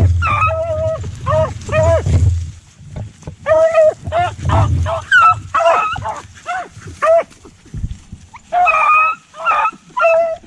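A dog barking and yipping in a long run of short, high-pitched calls, some drawn out and rising at the end. A low rumble runs under the first couple of seconds.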